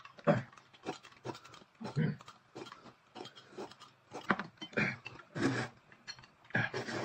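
Close-up slurping and sipping of a milky oat drink and noodles: a quick run of short, wet slurps, about two a second.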